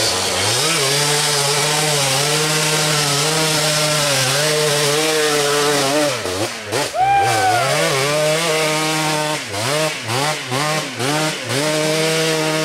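ATV engine running hard at high, steady revs. About six seconds in the revs drop and climb again, with a brief higher tone sliding down. It then settles into short throttle blips, about two a second.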